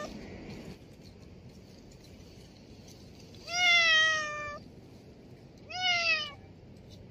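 Two drawn-out animal calls, each falling slightly in pitch, the first longer and louder, the second shorter about two seconds later, over a steady low background noise.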